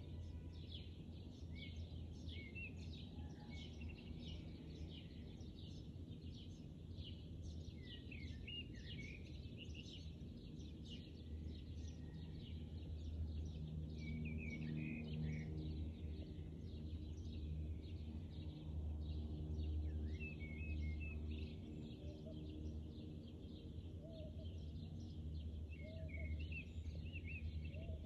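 Birds chirping, many short quick calls, over a steady low hum.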